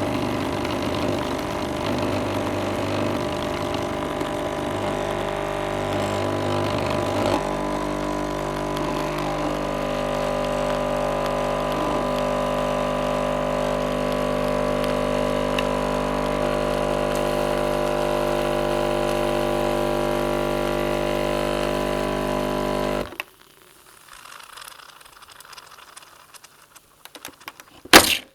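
Dolce Gusto capsule coffee machine's pump running with a steady hum while the coffee is brewing; the hum shifts slightly about 7 s in and cuts off suddenly about 23 s in as brewing ends. Faint small rattles follow, then one sharp click near the end.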